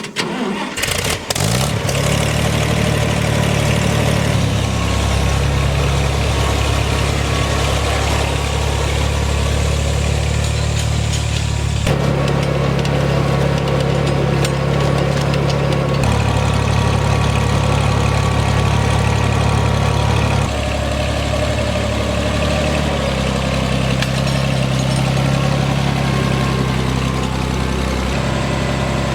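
Farmall 460 tractor engine catching about a second in, then running steadily, with its engine speed stepping up and down a few times.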